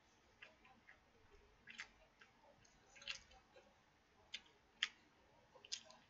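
Quiet eating sounds: a scattered series of light, sharp clicks and taps as chopsticks work a bowl of plain white rice, with the loudest click a little before the last second.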